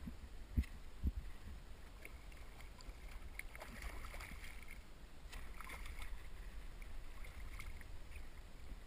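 A hooked trout of about a kilogram thrashing and splashing at the surface beside the bank as it is landed, the splashing strongest in the middle few seconds, over wind rumble on the microphone. Two dull thumps about a second in.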